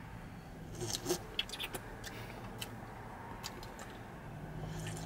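A man drinking from an aluminium can of energy drink: a run of small clicks, sips and swallows between about one and three and a half seconds in, over a steady low hum inside the car.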